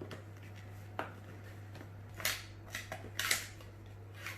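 GoPro Hero 9 box being opened by hand: two sharp clicks, then two short scraping, cutting strokes through the packaging, over a steady low electrical hum.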